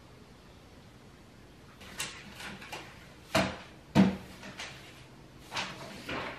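Handling noises at a desk: a string of knocks and scuffs as a flask and mug are put aside and a notebook is taken up. The two loudest knocks come about three and a half and four seconds in.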